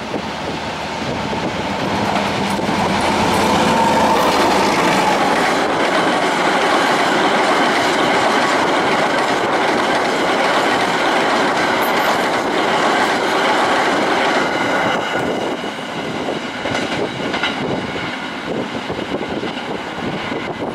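Chinese-built diesel freight locomotive and its train of flat wagons running past close by, a steady loud rumble of wheels on rail with clickety-clack over the rail joints, swelling over the first few seconds as it draws near.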